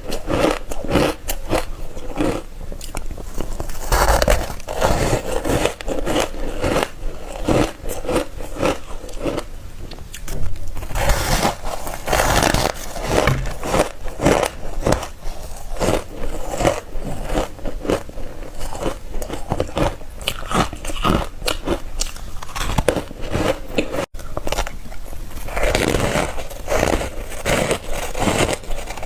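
Ice being bitten and crunched between the teeth, close-miked: a long run of sharp, crackly bites and crunches one after another, with a momentary break about 24 seconds in.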